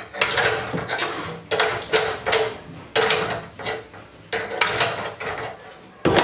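An adjustable spanner clinking and knocking against the hose nozzle fitting and stainless steel body of an LPG gas stove as the nozzle is worked loose: irregular metallic clicks several times a second with a faint ring, and a sharper knock near the end.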